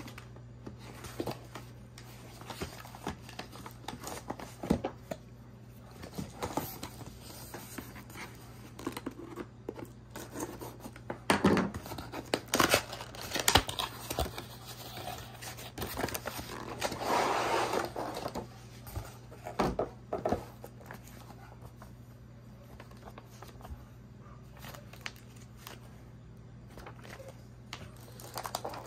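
Cardboard box and plastic packaging being opened and handled: scattered taps, scrapes and rustles, with a longer crinkling rustle a little past the middle. A steady low hum runs underneath.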